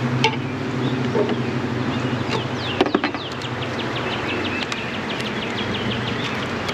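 Honey bees buzzing in a steady hum around an open hive. Midway a bird sings a run of quick falling notes, about four a second, and a few sharp knocks sound near the start and about three seconds in.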